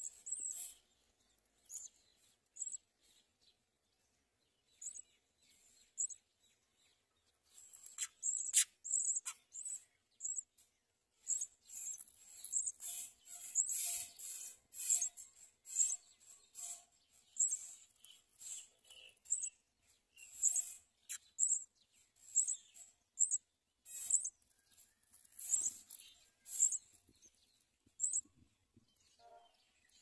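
Small birds chirping at a nest: short, high, thin chirps, sparse at first, then coming about one or two a second from about eight seconds in, with a couple of sharp clicks near the start of that run.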